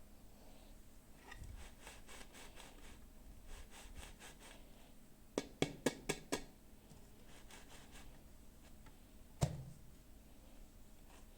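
Hands handling miniature toy pieces and their packaging: soft rustling, then a quick run of about five sharp clicks about halfway through, and one more sharp click near the end.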